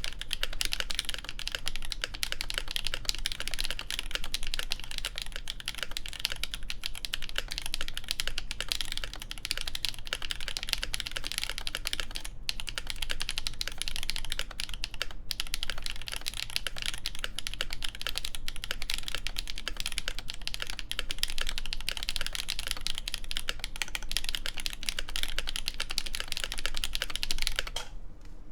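Steady, fast typing on an ASUS ROG Azoth mechanical keyboard with lubed Gateron Duck switches, a stainless steel plate and GMK keycaps. The key presses run densely with two brief pauses and stop just before the end.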